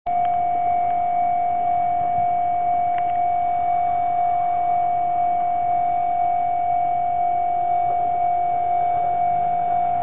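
Japanese railway level-crossing warning alarm sounding: a loud, steady high electronic tone with a slight regular pulse, signalling that a train is approaching and the barriers are down.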